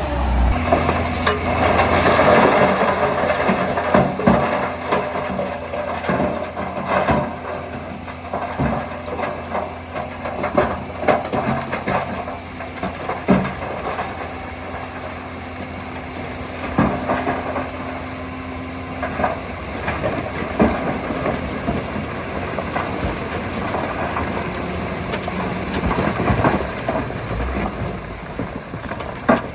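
Heavy earthmoving machine, likely the crawler bulldozer, running steadily with many sharp knocks and clanks scattered throughout.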